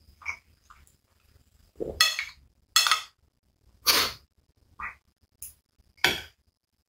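Close-miked metal fork scooping and scraping through rice in a glass bowl: a series of short scrapes and clinks, the loudest four coming about two seconds in and then roughly once a second, with softer mouth sounds of chewing between them.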